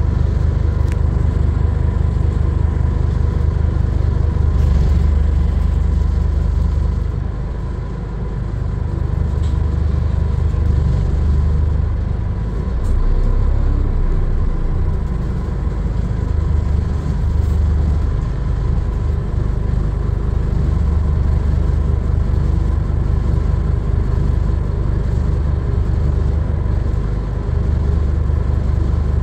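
Diesel engine of a Scania N230UD double-decker bus heard from inside the passenger saloon as the bus drives through town: a steady low rumble that eases off about eight seconds in and then picks up again, with a faint steady whine above it.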